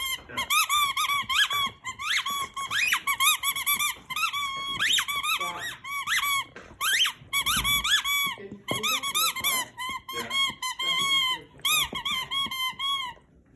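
A dog's rubber squeaky toy squeaking over and over as the dog chews on it, in quick runs of high squeaks broken by short pauses.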